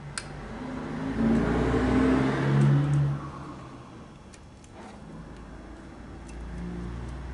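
A car's engine swelling to a peak and fading away over about three seconds.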